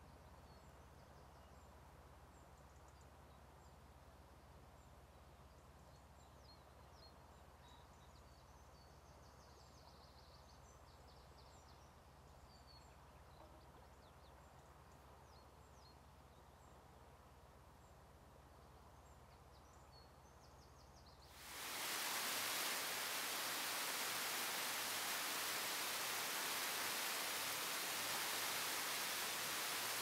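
Faint scattered bird chirps over a low steady hum, then a little over twenty seconds in a loud, even hiss cuts in abruptly and holds steady.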